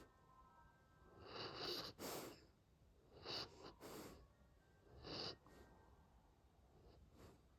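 Dalmatian snoring softly in sleep: slow, noisy breaths in and out, a swell every couple of seconds, growing fainter near the end.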